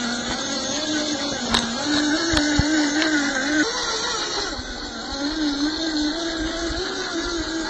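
Electric motor and gearbox of an MN86K RC crawler whining as it drives, the pitch rising and falling gently with the throttle. A few sharp clicks are heard from about one and a half to two and a half seconds in.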